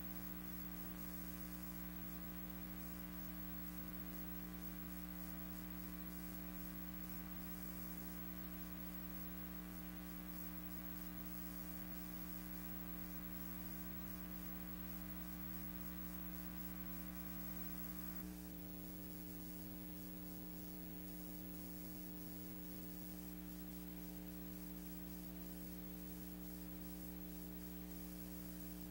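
Steady electrical buzzing hum with a faint hiss, a soundtrack that carries only noise. About two-thirds of the way through, the higher buzzing overtones drop away, leaving a lower, smoother hum.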